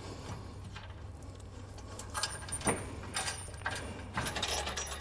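Light metallic clicks and taps of bolts, split washers and flat washers being hand-threaded into a steel frame bracket, starting about two seconds in and growing more frequent near the end.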